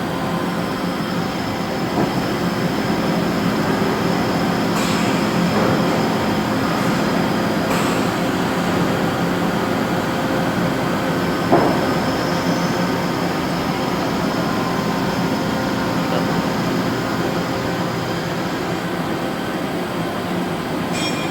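Machine shop floor noise: many machines running together in a steady, dense drone with several constant whining tones, broken by a few sharp metallic clinks and knocks.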